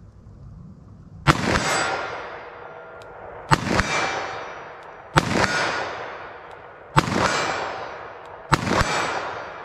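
.357 Magnum revolver fired double action with Hornady LEVERevolution 140-grain FTX loads: five shots about one and a half to two seconds apart, each followed by a long echoing tail.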